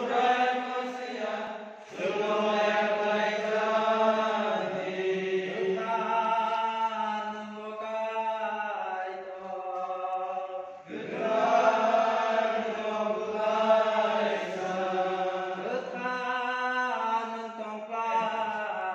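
Voices chanting a liturgical hymn in long, slow, held phrases, with short breaks about two seconds in and again near eleven seconds.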